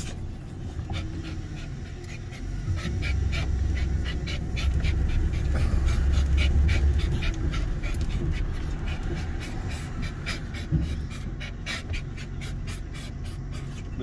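A dog panting quickly and evenly, about three breaths a second, close by, over the low rumble of the car it is riding in, which swells a couple of seconds in and eases off later.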